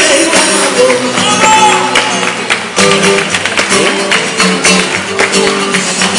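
Flamenco bulerías played live: a group's sharp rhythmic hand-clapping (palmas) over a flamenco guitar, with voices singing at moments.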